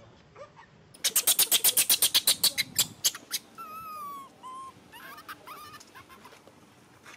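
Long-tailed macaques calling: a rapid train of loud, harsh pulses, about eight a second, for nearly two seconds, followed by a few short squeaky calls that slide up and down in pitch.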